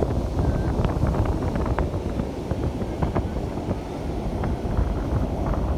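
Wind buffeting the microphone in a steady low rumble, with a few faint small clicks scattered through it.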